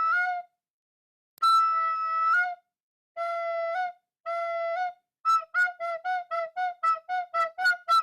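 Outro music: a high, flute-like melody of a few held notes with silent gaps between them, then a quick run of short repeated notes from about five seconds in.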